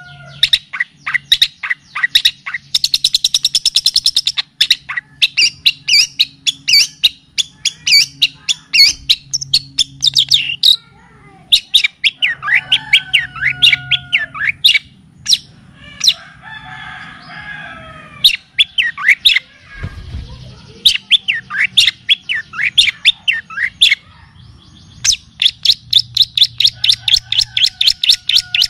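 Songbird song from a bird-tutoring (masteran) recording of kapas tembak and cililin songs: quick, high chirps and whistled notes follow one another in rapid runs, with fast trills about three seconds in and again near the end, over a faint low hum.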